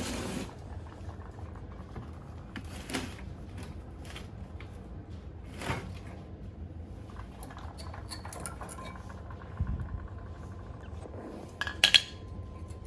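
Metal tools and parts clinking and knocking during hands-on work, with scattered light clicks. Near the end comes a louder pair of metallic clanks, followed by a faint lingering ring.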